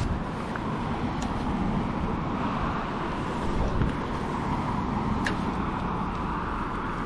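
Steady rush of a river's flowing current, with a couple of faint sharp clicks about a second in and about five seconds in.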